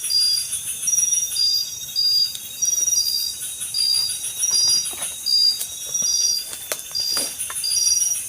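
Forest insects calling: short high chirps repeating about twice a second at two alternating pitches, over a pulsing high trill. A few sharp clicks or snaps come about halfway through.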